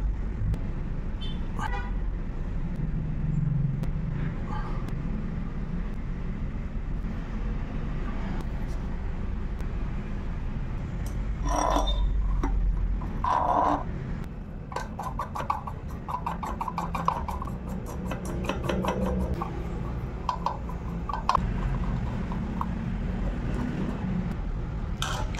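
Road traffic running steadily with short car horn toots, and in the middle a quick run of small sharp clicks.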